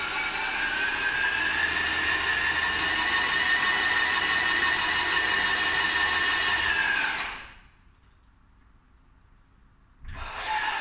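Graco electric airless paint sprayer's motor and pump running with a steady whine, which slides down and stops about seven seconds in, then starts up again with a rising whine about ten seconds in.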